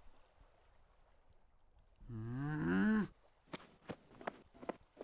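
A man's drawn-out wordless vocal groan, about a second long, rising in pitch and dropping at the end, followed by a few quick footsteps on pavement.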